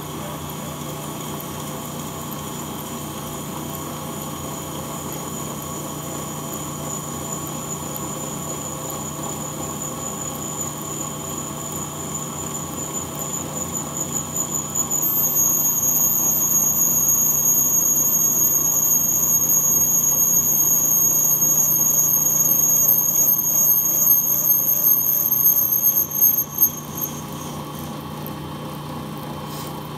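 AMMCO brake lathe running with its arbor spinning while a cutting bit faces the arbor's end; the cutter gives a thin, high-pitched squeal over the machine's steady hum. The squeal gets much louder about halfway through and cuts off a few seconds before the end, leaving only the lathe running.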